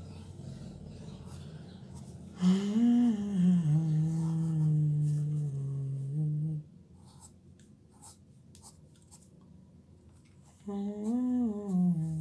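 A man humming a wordless tune twice, each phrase rising, falling and then holding a low note, with faint pencil scratching on paper in the pause between.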